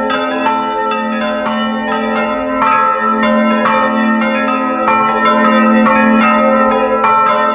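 A peal of several swinging bronze church bells ringing together, strikes of different pitches overlapping irregularly a few times a second over a deep, continuous hum.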